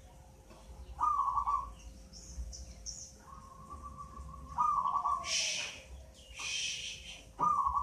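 Zebra dove (perkutut) cooing: short rolling coos about a second in, a longer held note a little past three seconds in, and more coos near the middle and at the end. Two short hissing bursts fall between the later coos, over a faint steady hum.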